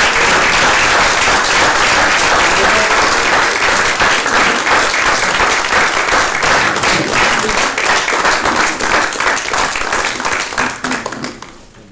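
A roomful of people applauding, dense steady hand clapping that fades out near the end.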